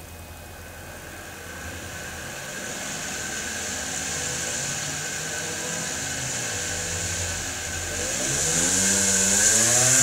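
Mini window motor, a small reed-switch-timed pulse motor, spinning with a hissing hum that grows steadily louder. Near the end its whine climbs in pitch as it speeds up while the reed switch is moved by hand toward the position where it times the motor best.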